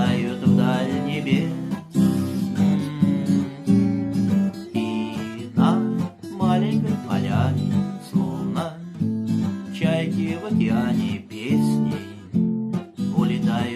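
Acoustic guitar strummed in chords, playing an instrumental passage between the sung verses of a song.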